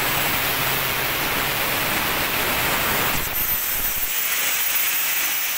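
Electric angle grinder with a cutting disc grinding into steel square tubing, a steady hissing grind. After about three seconds the grind eases as the disc lifts off the metal and a thin high whine of the free-spinning disc comes in.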